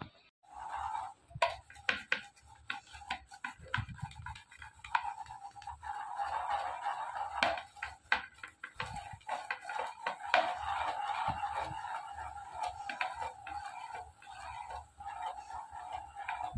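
A hand stirring and raking dry puffed grains in a steel plate: dense rustling with many small clicks of the grains against the metal.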